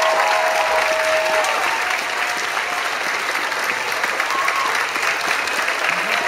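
Theatre audience applauding steadily, with a few voices cheering in the first second or so and again near the end.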